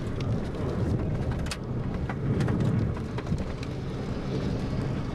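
Rain hitting the windows and body of a moving car, heard from inside the car: scattered sharp drop impacts over a steady rumble of road and engine noise.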